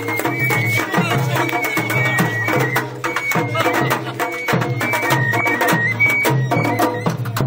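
Japanese festival hayashi: taiko drums struck in a steady, busy rhythm under a high shinobue flute melody that holds notes and steps between them.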